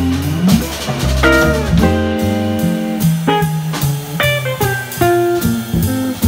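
Live jazz trio playing: an archtop electric guitar plays single notes and chords over a plucked upright bass line and a drum kit keeping time.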